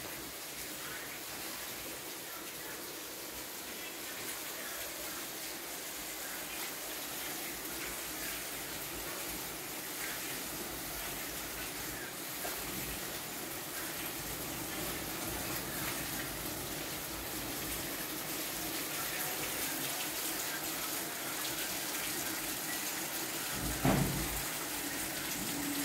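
Steady rain falling, an even hiss of water with scattered drips, growing a little louder; a single low thump near the end.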